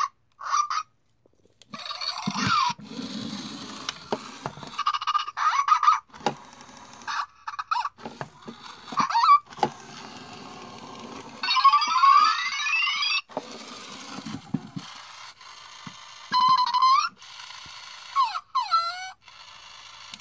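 Zhu Zhu Puppies electronic plush puppy toy playing its built-in sounds through a small speaker: short electronic yips and beeping chirps in bursts, a rising sweep about halfway through, and warbling pitch glides near the end. Rubbing and handling noise from the toy being held and moved sits underneath in places.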